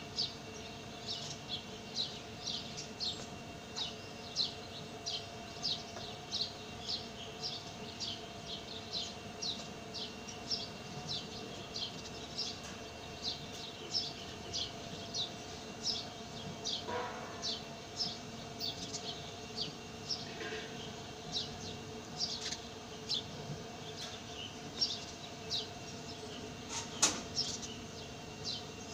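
Hand milking into a steel bucket partly full of milk: short, even squirts of milk hissing into the froth, just under two a second.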